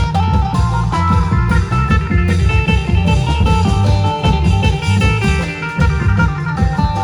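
Thai klong yao long-drum band playing a lively procession tune: heavy, steady beating from the long drums under a plucked-string lead melody.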